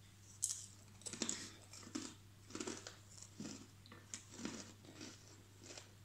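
A person chewing a dry, crumbly snack, with short chewing sounds coming about every half second to second.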